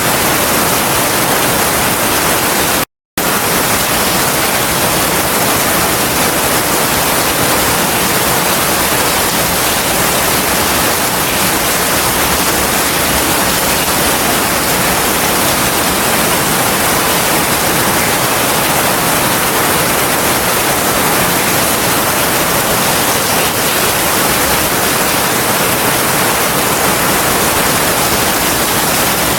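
Heavy rain falling steadily in a forest, an even dense hiss. It cuts out to silence for a split second about three seconds in, then carries on unchanged.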